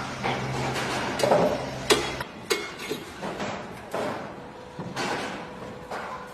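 A series of irregular knocks and bangs, with a low steady hum underneath that cuts off about two seconds in.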